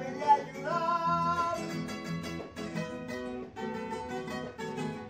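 Acoustic guitars playing a paseo together, strummed chords with a plucked melody on top.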